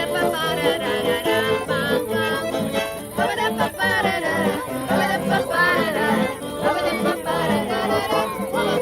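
Instrumental introduction to a Russian children's song: a melody over a steady rhythmic accompaniment, before the singing begins.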